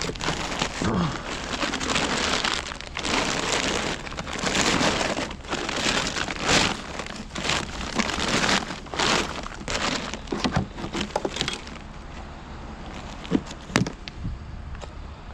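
Rubbish being rummaged through by hand: plastic bags and packaging rustling and crinkling, with items knocking together, busy for most of the stretch and then quieter, with a few light knocks near the end, over a steady low rumble.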